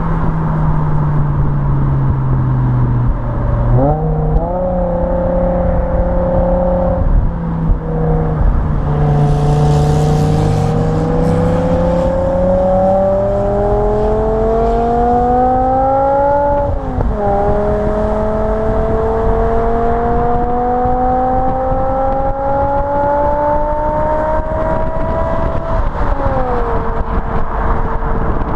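BMW M5 E61's 5.0-litre V10 on its standard rear exhaust boxes, under way. The pitch jumps sharply about four seconds in, then the engine pulls steadily up through the revs and drops suddenly at a gearchange about seventeen seconds in. It climbs again, shifts once more near the end and settles to a steady cruise, over constant tyre and road noise.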